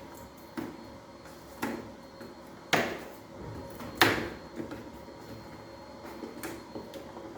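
Knocks and clicks of vacuum cleaner parts being handled and taken apart: about six sharp knocks spread a second or so apart, the loudest two near the middle.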